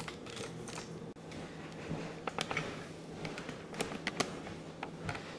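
Scattered light clicks and taps of things being handled in a kitchen, over a faint steady hum.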